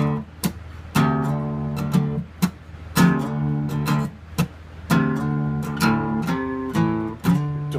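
Acoustic guitar strummed in a steady rhythm, a full chord struck about once a second with short choked strokes between.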